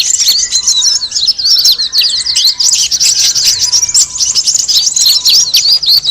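Busy chorus of many small birds chirping and trilling rapidly at once, high-pitched and unbroken: a bird-lure recording of a noisy flock of small birds.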